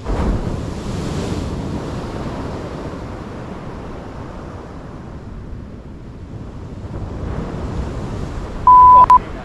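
Surf breaking on a sandy beach, with wind buffeting the microphone; the wash of the waves swells at the start and again about eight seconds in. Near the end a loud, steady electronic beep at one pitch sounds for about half a second.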